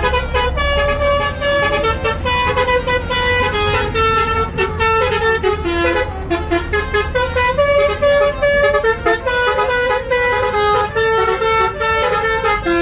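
Basuri V3 telolet bus horn playing a tune: a fast string of short stepped horn notes. A bus engine is running underneath.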